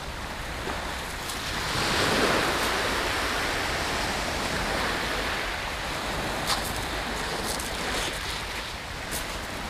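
Small waves breaking and washing up a shingle beach, the surf swelling about two seconds in and then easing off.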